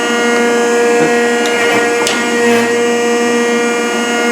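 Rockford hydraulic planer running: a steady pitched machine hum with many overtones, with a couple of short knocks about one and two seconds in.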